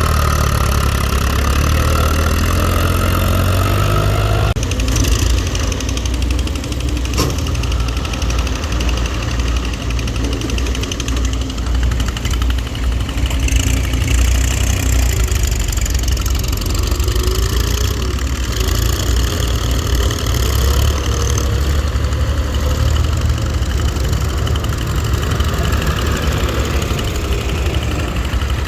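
Heavy diesel engine running steadily at low revs, with a deep throb; the higher-pitched part of the sound drops away about four and a half seconds in, and there is a sharp click about seven seconds in.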